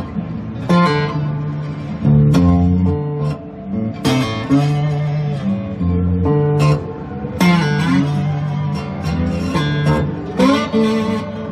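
Background music: guitar, with a strummed chord every second or two.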